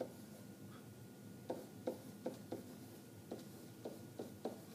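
Pen or stylus tapping and writing on an interactive whiteboard in a small room: a faint tap at the start, then about eight short, light knocks in the second half.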